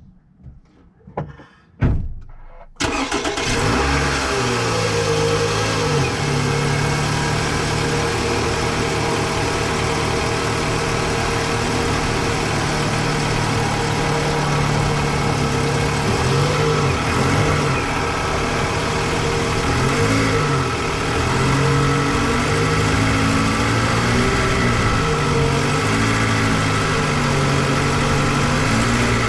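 A few clicks and knocks, then the Toyota Vanguard's 2.4-litre 2AZ-FE four-cylinder petrol engine starts up about three seconds in and settles into a steady idle, its pitch wavering now and then.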